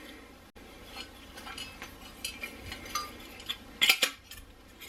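Light metallic clinks and clicks of a metal squirrel-cage blower wheel being handled and slid onto a furnace inducer motor's shaft, with a sharper pair of clicks about four seconds in.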